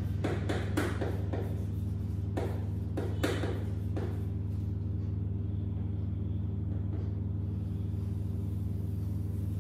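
Chalk tapping and scratching on a blackboard as words are written: a quick string of short strokes in the first four seconds, then fainter strokes. A steady low hum runs underneath.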